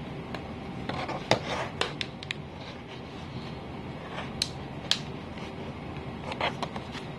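Handling noise from a plastic-cased Chromebook laptop being picked up, closed and turned over on a wooden desk: a scatter of sharp plastic clicks and light knocks, the loudest about a second in.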